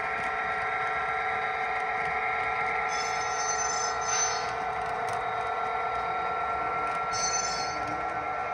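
HO-scale model freight train rolling, with a steady hum and, from its Soundtraxx sound car, two brief high-pitched flange squeals, about three seconds in and again about seven seconds in.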